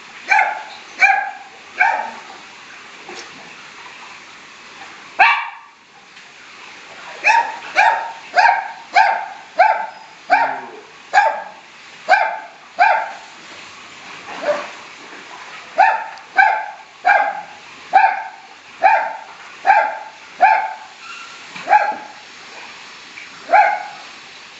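A dog barking repeatedly, in runs of about two barks a second with a pause of a few seconds. A single sharp hit or splash sounds about five seconds in.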